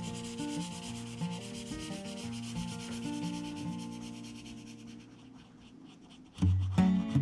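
Felt-tip marker rubbing back and forth on drawing paper as shading is filled in. The rubbing fades out after about four seconds. Acoustic guitar music plays underneath and turns suddenly louder near the end.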